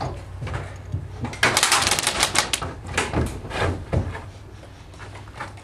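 Airsoft guns firing: fast runs of sharp clicking shots, thickest a second and a half to two and a half seconds in, with scattered single shots after.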